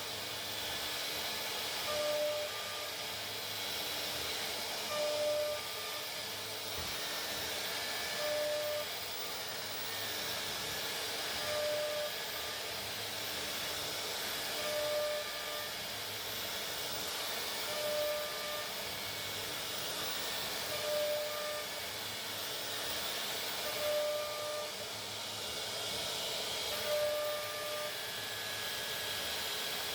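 Steady hiss of a CNC router machining plastic, with a short beep that repeats about every three seconds.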